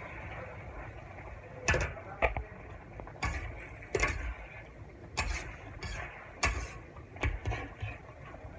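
Metal spatula scraping and knocking against an aluminium wok while pork is stir-fried in sauce: about nine irregular clinks and scrapes over a steady background hiss.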